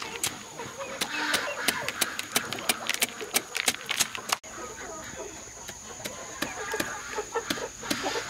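Dried corn kernels being scraped off the cob with a large knife blade and dropping onto a woven bamboo tray: a quick, uneven run of sharp clicks and crackles.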